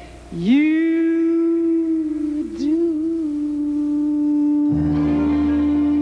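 A woman singing one long held note. Its pitch dips and wavers briefly about halfway through, and a backing band with bass comes in under it near the end.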